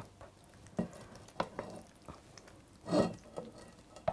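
Spoon scraping and clicking against a frying pan as thick stewed offal is pushed out into a ceramic pot: a few light clicks, then a longer, louder scrape about three seconds in.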